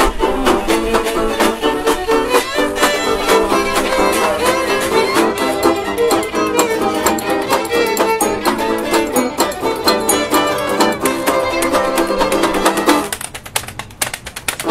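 Old-time string band playing an instrumental break: a fiddle bows the lead over a steady scraped washboard rhythm and resonator guitar. About a second and a half before the end the fiddle stops, and the music drops to the washboard clicks and guitar.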